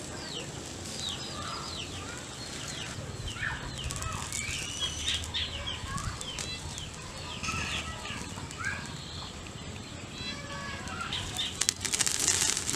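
Small birds chirping in many short, scattered calls over the crackle of an open wood fire. The fire's crackling grows denser near the end.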